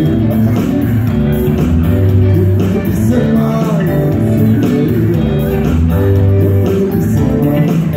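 Live band playing dance music: guitar over a steady beat, with singing.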